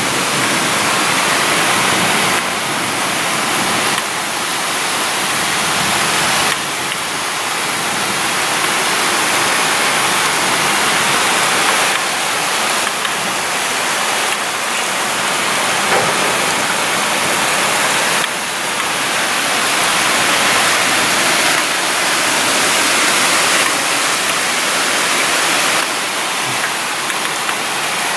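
Heavy rain pouring down in a thunderstorm: a steady, loud hiss of the downpour.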